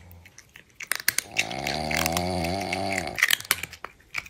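A long, low buzzing snore that starts about a second in and lasts nearly two seconds, with faint clicks around it.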